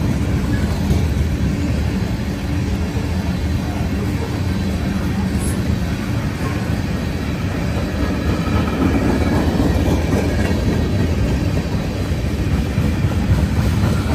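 Freight train's covered hopper and tank cars rolling past close by, a steady rumble of steel wheels on the rails.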